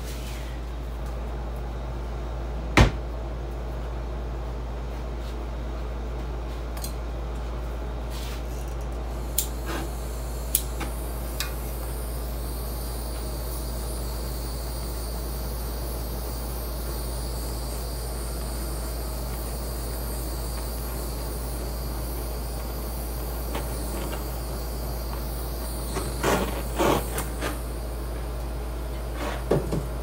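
A few sharp clicks and knocks over a steady low hum: one loud click about three seconds in, a few lighter ones around ten seconds, and a small cluster near the end. A faint steady hiss runs through the middle stretch.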